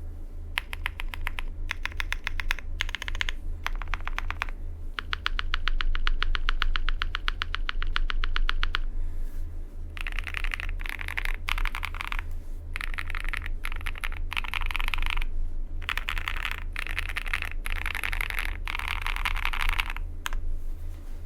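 AL75 custom mechanical keyboard with lubed Chaosera Cupid linear switches, FR4 plate and PBT cherry-profile keycaps being typed on. First come quick, evenly spaced runs of keystrokes in short bursts, then from about halfway dense, fast typing with the strokes running together.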